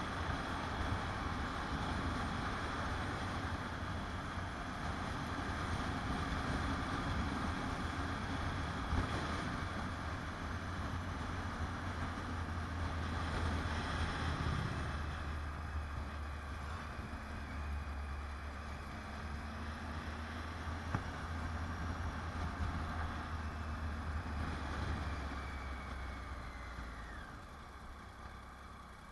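Motorcycle engine running steadily at road speed under a rush of wind noise. A little over midway a louder swell comes as an oncoming motorcycle goes past. Near the end the sound falls away with a dropping tone as the bike slows.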